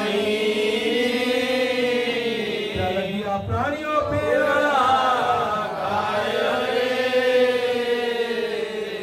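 Male voices chanting a devotional verse in long held notes whose pitch slowly rises and falls.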